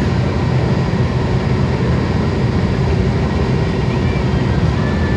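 Moving road vehicle: a steady low rumble of engine and road noise.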